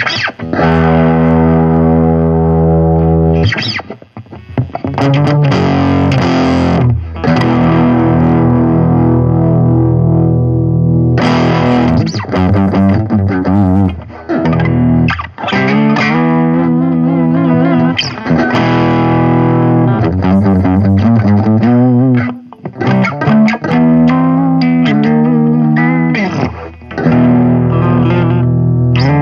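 Electric guitar played through a Line 6 Spider IV 15 practice amp on its crunch channel: distorted chords held and let ring, with a few short breaks between phrases.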